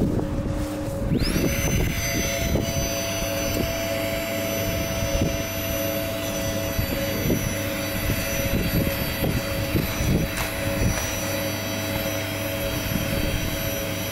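Wind turbine machinery running with a steady hum and whine in several held tones, a higher whine rising in about a second in and then holding. Rustling and soft knocks of a nylon hammock bag being unpacked sound over it.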